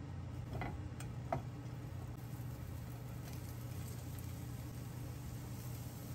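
Green onions sizzling faintly in oil in a nonstick frying pan, with a few sharp clicks of a container and utensil against the pan about a second in, then shredded cabbage being dropped into the pan. A steady low hum runs underneath.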